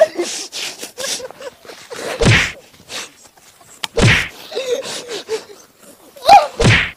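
A wooden stick striking a person in a staged beating: loud whacks about two seconds apart, then two in quick succession near the end. Between the blows a man groans and cries out.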